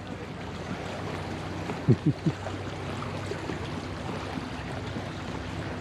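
Steady rush of a swollen creek flowing below a footbridge, with three short low sounds about two seconds in.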